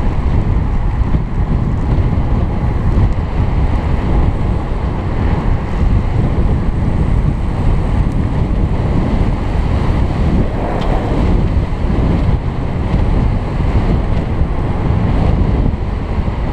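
Wind buffeting the microphone of a helmet-mounted camera on a road bike ridden at race speed: a loud, steady low rushing noise.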